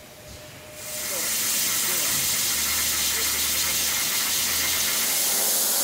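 Torch of a CNC gantry cutting machine cutting steel plate: a loud, steady hiss that starts about a second in.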